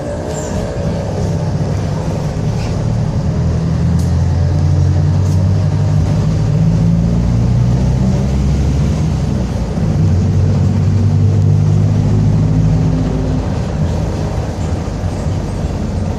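Mercedes-Benz OF-1722M city bus's diesel engine pulling under load, with the growl of its differential. The pitch climbs as the bus gathers speed, drops briefly about two-thirds of the way through as at a gear change, climbs again, then eases off near the end.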